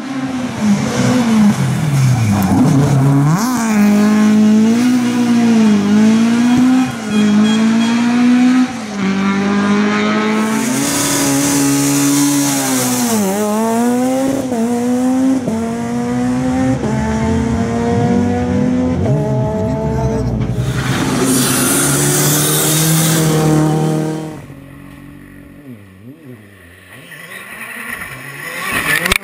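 Rally cars driven flat out on special stages: engines revving hard, pitch climbing and dropping again and again through gear changes and lifts off the throttle. Twice a loud rushing hiss sweeps over the engine as a car passes close, and near the end the sound drops away briefly before another car comes on.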